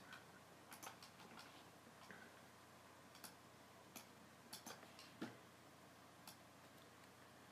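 Faint computer mouse clicks, about ten of them scattered irregularly over near-silent room tone.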